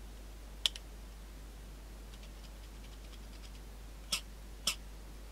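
Small plastic clicks as the two halves of a crow call's black plastic mouthpiece are handled and fitted around its reed: one sharp click about two-thirds of a second in, a few faint ticks, then two clicks about half a second apart near the end.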